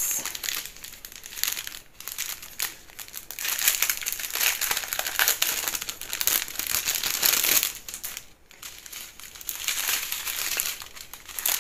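Clear plastic packaging of diamond-painting drill strips crinkling as it is handled and turned in the hands. The crinkling goes on and off, with short lulls about two seconds in and again around eight seconds.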